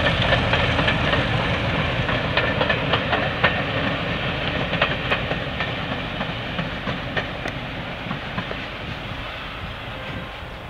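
A passenger train's coaches run past, their wheels clicking irregularly over rail joints above a low rumble. The sound fades steadily as the train moves away.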